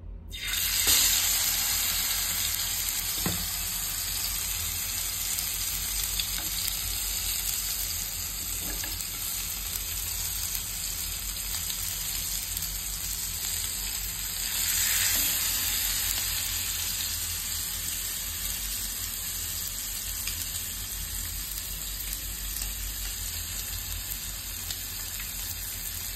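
Kingfish steaks coated in red masala sizzling in hot oil on a flat tawa pan. The sizzle flares up about a second in as the first piece goes down, and flares again about halfway through as a second piece is laid in.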